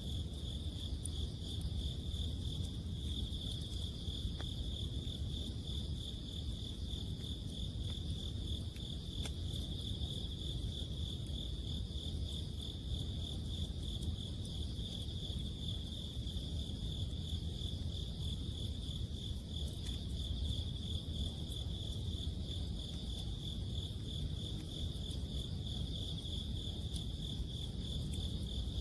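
Autumn crickets trilling in a continuous, steady chorus over a low background rumble, with a few faint crackles from a wood campfire.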